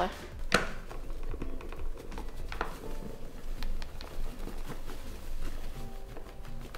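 Paper bag of flour rustling as flour is poured from it into a glass stand-mixer bowl, with scattered light taps and a soft patter.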